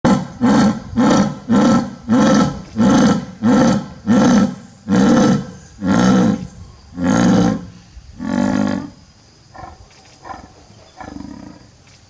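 Male jaguar's sawing call: a run of deep, rhythmic grunts, about two a second at first, slowing and growing longer, then trailing off into a few faint grunts near the end.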